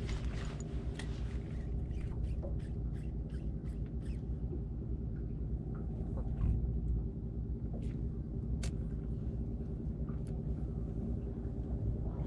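A fishing boat's engine idling with a steady low hum. Over the first four seconds comes a quick run of sharp clicks, a couple to a few each second, then only a few scattered clicks.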